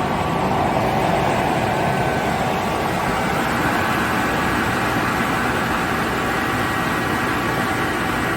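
KAESER SK25 15 kW rotary screw air compressor running steadily under load, building pressure in its receiver.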